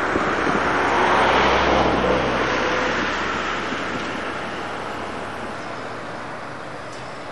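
A vehicle passing close by: a rushing noise over a low engine rumble, loudest about a second and a half in, then fading away.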